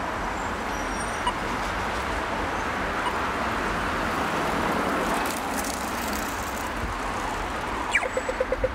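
Road traffic on a city street, with a vehicle swelling past about halfway through. Near the end a pedestrian crossing signal clicks and starts beeping rapidly, about eight beeps a second.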